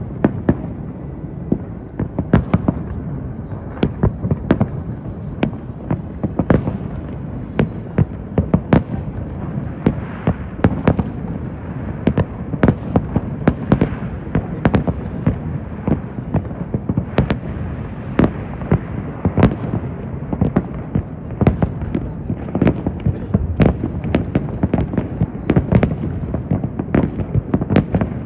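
Fireworks display in full barrage: aerial shells bursting in a rapid, unbroken stream of sharp bangs, several a second, over a continuous low rumble.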